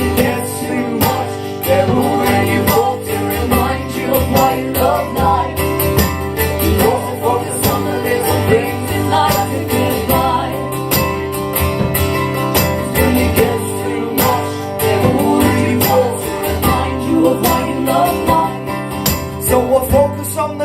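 Live acoustic guitars strumming chords in an instrumental passage of a pop-folk song, with a melody line over them.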